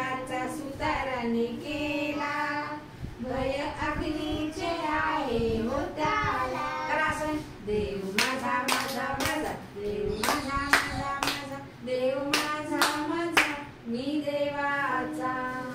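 A woman and small children singing a Marathi children's rhyme together, with a quick run of hand claps about halfway through.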